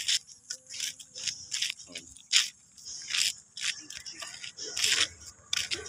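Footsteps scuffing and scraping on a concrete road, a string of short, sharp scrapes at uneven intervals.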